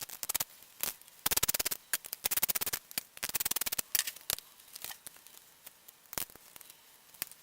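Connection pins being pulled from a computer sound card, heard as about four short runs of rapid clicking with single clicks between them.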